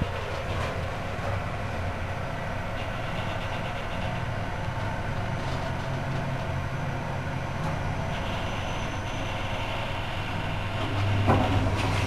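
1990 Mitsubishi elevator car travelling upward, heard from inside the car: a steady low hum and rumble of the ride. Near the end the hum grows louder and there is a click.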